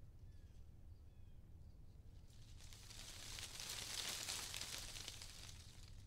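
Outdoor nature ambience: a gust of wind rustling through leaves swells up and fades away around the middle, over a low steady rumble, with a couple of faint, short bird chirps in the first second.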